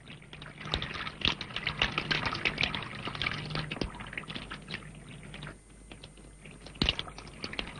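Water running from a tap and splashing in an irregular spatter, which thins out after about five seconds, with one sharp knock near the end.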